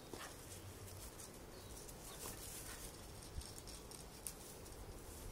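Faint scuffling with a few soft taps as a dog leaps at and tugs an old shoe hanging from a line over grass.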